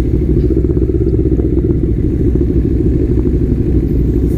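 Motorcycle engine running steadily at low revs, without revving, heard close up from a camera mounted on the bike as it creeps forward.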